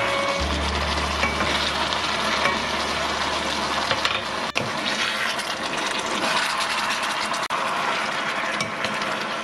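Beef brisket, bean sprouts and vegetables sizzling in a hot wok as they are stir-fried: a steady frying hiss with small clicks and scrapes from the wooden spatula.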